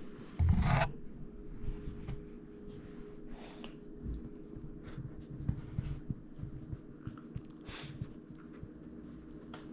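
Small chiweenie dog making one short, loud, low sound about half a second in, then quieter breathy puffs and light scuffling as it moves about.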